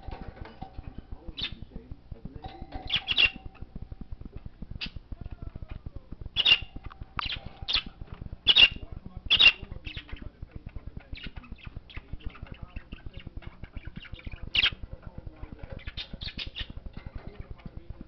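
Budgerigar giving short, sharp squawks and chirps, singly and in quick clusters, loudest in a run of calls in the middle.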